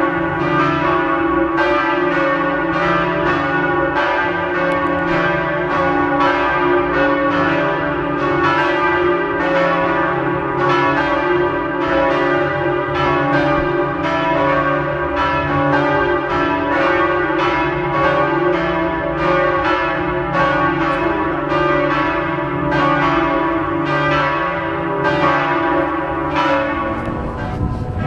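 A peal of several church bells ringing continuously, struck in quick succession at about two strikes a second, their tones overlapping and ringing on.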